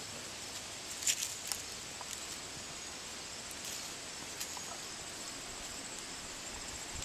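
Great Dane puppies rustling through flower plants, with a few light crackles and snaps about a second in and again around four and a half seconds, over a steady outdoor hiss.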